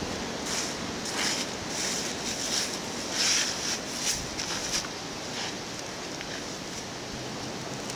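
Footsteps rustling and crunching through dry fallen leaves, a few irregular steps in the first five seconds, over steady wind noise on the microphone.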